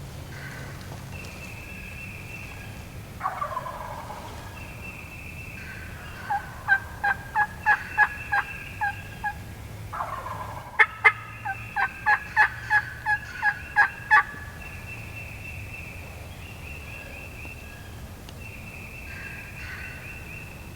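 Turkey yelping: two runs of evenly spaced yelps, about three a second, each run led by a short falling call. These are the loudest sounds, over a faint low rumble and faint repeated high notes.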